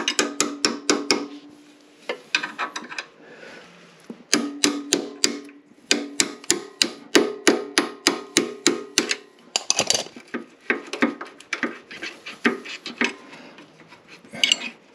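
Rapid light hammer taps on a metal punch, driving a motorcycle footpeg's pivot pin out of its mount, each tap ringing briefly. They come in several runs of about four or five taps a second, with short pauses between, and turn less regular near the end.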